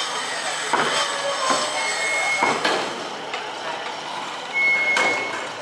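Slipway winch gear and steel cables working: metallic clanking and knocks over a steady mechanical din, with a short high steady squeal twice.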